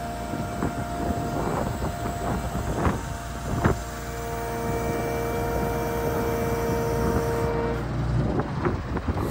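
Diesel engine running with the bucket truck's hydraulics whining steadily as the boom is lowered; the whine cuts off about eight seconds in as the boom comes to rest, and a couple of sharp knocks sound midway.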